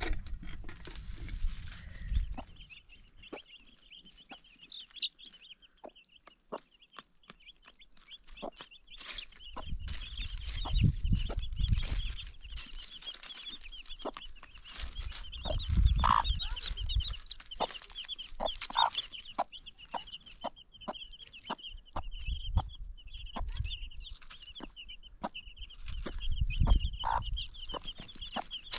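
A brood of chicks peeping continuously in rapid high chirps while a hen clucks now and then, with scratchy clicks from dry leaves. Bursts of low rumble come and go, loudest about halfway through and near the end.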